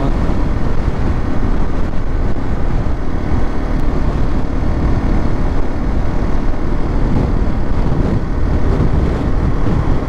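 Motorcycle running steadily at road speed, its engine under a constant rush of wind and road noise on the rider's microphone.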